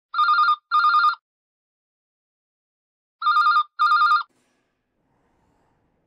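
Telephone ringing in the British double-ring pattern: two short warbling rings, a pause of about two seconds, then two more.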